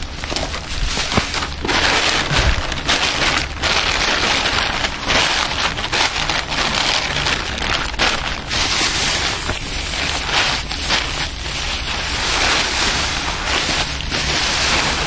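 Wind rushing over the microphone in gusts: a loud, continuous roar that swells and eases.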